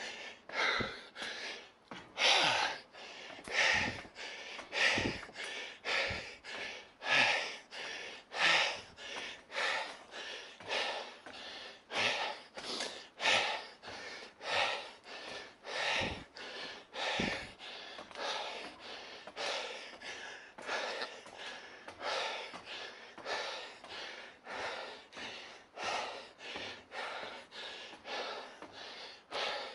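A person panting hard and rhythmically, quick breath after breath, from the exertion of climbing a long, steep stairway on foot.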